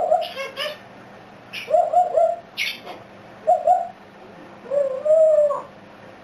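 A pet talking bird making low cooing calls, mostly in short groups of two or three, with a longer drawn-out coo about five seconds in and a few short hissy squawks among them.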